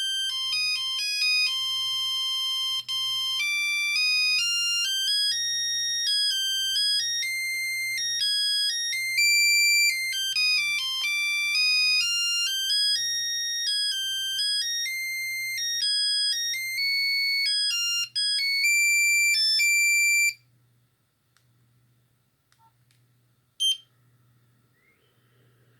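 Nokia 6310i monophonic ringtone: a single-voice, buzzy beeping melody of stepped notes that stops about twenty seconds in. A short beep sounds near the end.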